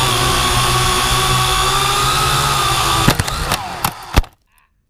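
Quadcopter drone's electric motors and propellers running with a steady high whine. About three seconds in there is a run of clicks and knocks as the drone tips over, then a loud knock just after four seconds, and the motors cut off suddenly.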